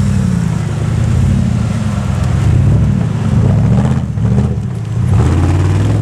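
Off-road vehicle engine revving up and down several times, its pitch rising and falling repeatedly.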